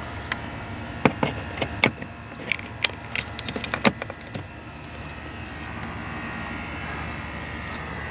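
About a dozen sharp clicks and knocks, between one and four and a half seconds in, over a steady mechanical hum.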